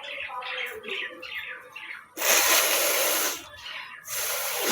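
Birds chirping in quick repeated notes for the first two seconds, then a person blowing their nose hard: a loud rushing blast lasting about a second, and a second long blow starting near the end.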